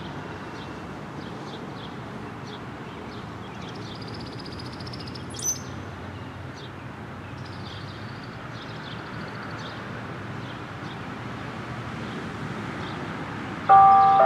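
Small birds chirping and trilling over a steady hum of road traffic. Near the end the bell tower's bells start to chime, suddenly and much louder, several notes ringing together.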